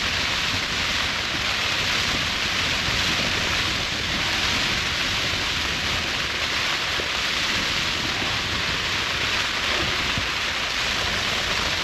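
Heavy rain beating steadily on a Hilleberg Staika tent's flysheet, heard from inside the tent.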